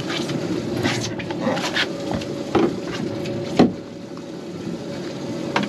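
Several sharp knocks and thumps on the boat, the loudest about three and a half seconds in, over the steady hum of the boat's engine running.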